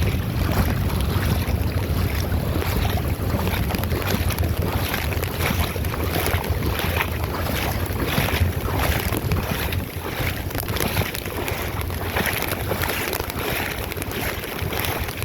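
Wind buffeting the microphone with a heavy low rumble, over the rush and splash of fast-flowing ocean floodwater.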